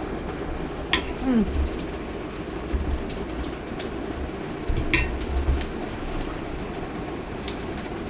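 Heavy rain falling, a steady hiss, with a sharp click about a second in and another about five seconds in, and a few low thumps.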